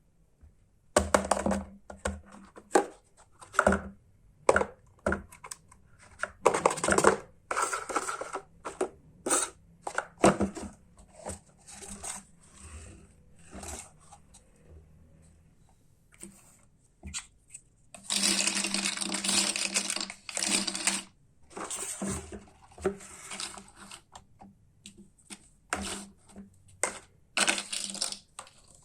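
Hard plastic toy parts being handled: a run of sharp clicks, knocks and clatters, with about three seconds of continuous rattling noise roughly two-thirds of the way through.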